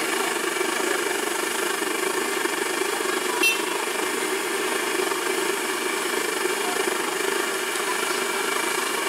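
Raw banana slices deep-frying in a large kadai of hot oil: a steady sizzle of bubbling oil over a constant low rumble.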